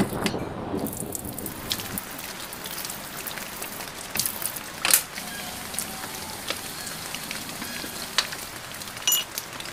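Rain falling on a wet tiled floor: a steady hiss with scattered sharp drip ticks.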